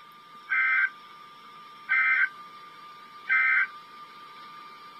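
Emergency Alert System end-of-message code: three short, identical modem-like data bursts about 1.4 seconds apart, the signal that closes the alert broadcast.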